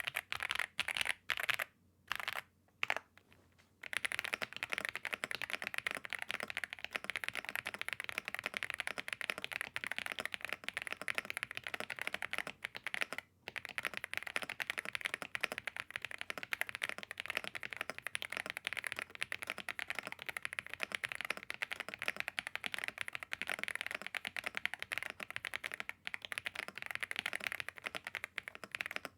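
Typing on a stock, unmodded budget custom mechanical keyboard with a plastic case and polycarbonate plate. A few separate keystrokes come first, then about four seconds in it turns into continuous fast typing with one short break. The keystrokes have a hollow sound, which comes from the cheap plastic case.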